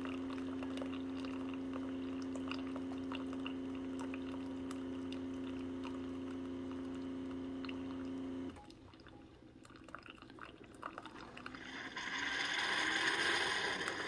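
Keurig K-Duo Plus single-serve brewer brewing a K-cup: its pump hums steadily as coffee pours into a glass mug. The hum cuts off suddenly about eight and a half seconds in, and near the end a hiss builds as the last of the brew is pushed through.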